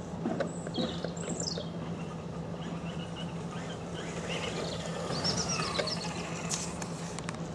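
Small birds chirping with short high calls, a few near the start and a busier run a little after the middle, over a steady low hum.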